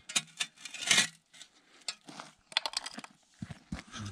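A steel shovel blade scraping and digging into gravelly dirt, with small stones clinking and rattling on the blade in a run of irregular scrapes and clicks.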